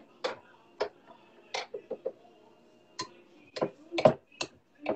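Light, irregular clicks and taps of a spatula against nonstick frying pans while crepes are turned, about a dozen in all, coming quicker near the end, with the loudest about four seconds in.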